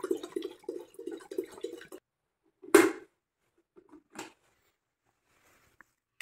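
Water glugging out of a glass bottle as it is poured into an electric kettle, about three glugs a second, stopping about two seconds in. Then comes a loud clack near three seconds and a softer knock at about four as the kettle is handled, and a light click of the wall switch near the end.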